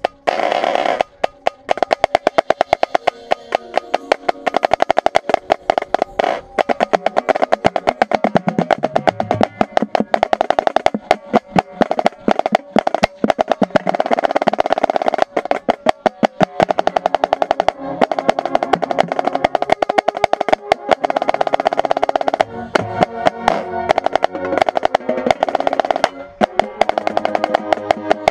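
Marching snare drum played with sticks right at the microphone, with fast stroke patterns and rolls. The rest of the marching band plays around it.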